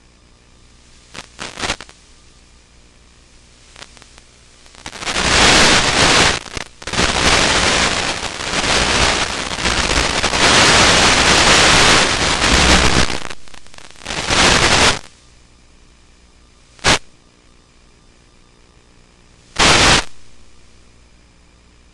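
Radio static from an analog FPV video receiver: hiss and crackle that swell up in bursts as the video signal fades and breaks up. The longest and loudest burst runs from about five to fifteen seconds in, with short bursts near the start and two more near the end.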